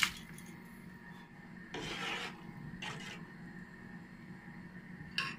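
Rice being tipped into a pot of broth, then a spoon stirring and scraping in the pot in a few short rasping strokes, the longest about two seconds in, over a steady low hum.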